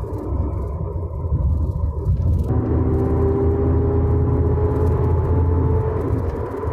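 Third-generation Pontiac Trans Am under way: a steady low drivetrain and road rumble, with a whine from the rear differential that comes in about two and a half seconds in, rises slowly in pitch, and fades near the end.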